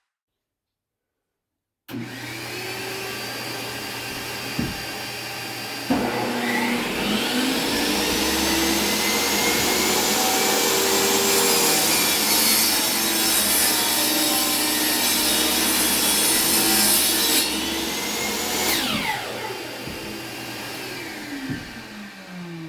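Electric power saw spinning up with a rising whine about six seconds in, cutting through wood with a brighter hiss for several seconds, then winding down near the end. A steady machine hum runs underneath before and during the cut.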